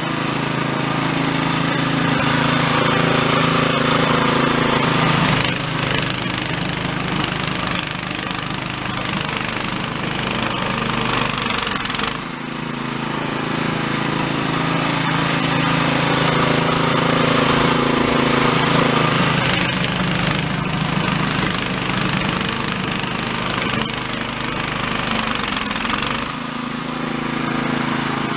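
Toro Snowmaster 724 QXE snowblower running under load as its auger chews through deep, heavy, refrozen snow. The engine note and loudness sag and recover about twelve seconds in and again near the end as the load changes.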